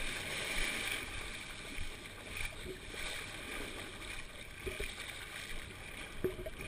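Shallow beach water lapping and sloshing around a person wading, with a steady hiss and a few small splashes.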